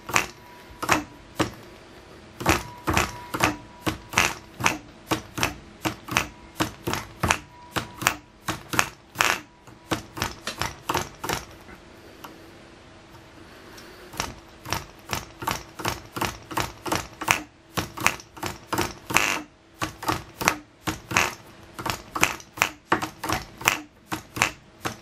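Clan 0.24cc side-port model diesel engine being flicked over by hand at the propeller. It gives sharp clicks about three a second without catching into a steady run, and the clicks stop for about two seconds near the middle.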